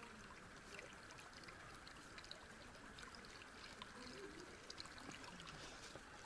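Faint, steady rushing of a river current, with a few small ticks over it.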